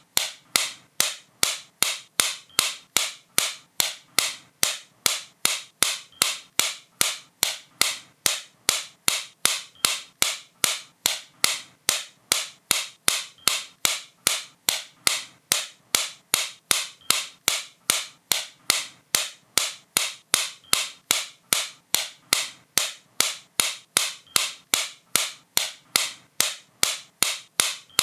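Sharp, bright clicks repeating at a steady, even pace of about three a second.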